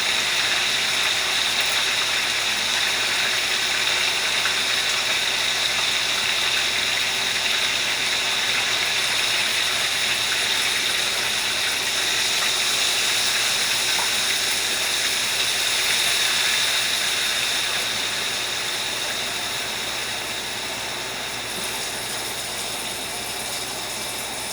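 Fish frying in oil in a pan, a steady sizzle that eases slightly in the last few seconds.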